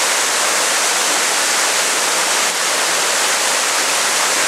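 Waterfall rushing steadily, a loud, even hiss of falling water.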